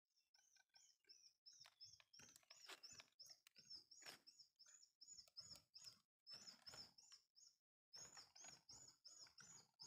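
Near silence, with faint high chirping repeating quickly and evenly, about three to four chirps a second, pausing briefly twice. A few faint ticks are scattered through it.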